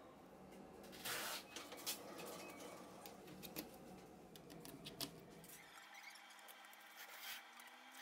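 Faint handling sounds from disassembling the opened iPhone 6: scattered small clicks and light scratching of gloved fingers and tools on its metal and plastic parts, with a brief rustle about a second in.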